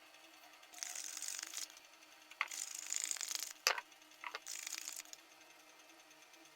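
Three short bursts of high hissing noise, each up to about a second long, with a few sharp clicks between them.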